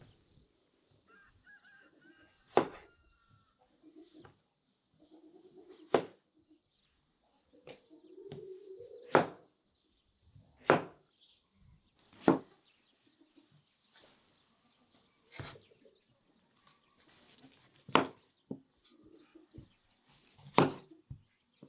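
Large curved kitchen knife cutting through tomatoes and striking a wooden cutting board: eight sharp knocks, one every two to three seconds.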